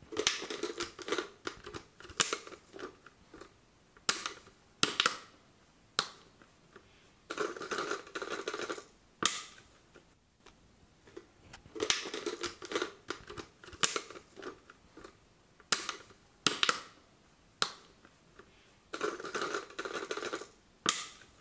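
A utility knife blade cutting around a thin clear plastic water bottle, the plastic crinkling and crackling with sharp clicks. The sound comes in bursts of a second or two with short pauses between.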